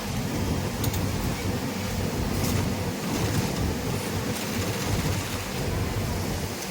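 Industrial sewing machines running in a garment factory, a steady rapid mechanical chatter and whir.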